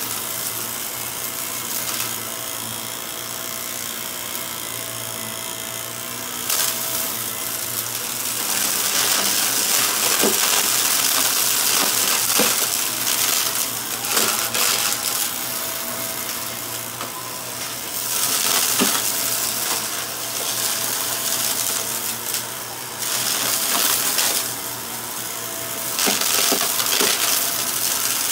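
Upright vacuum cleaner running over heavily littered carpet: a steady motor hum and rushing air that grows louder and softer as it is pushed back and forth, with scattered sharp clicks and rattles of debris being sucked up.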